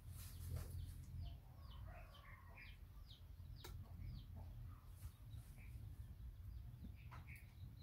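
A run of faint, short, high chirps, each falling in pitch, a few a second, from an animal, over a steady low hum.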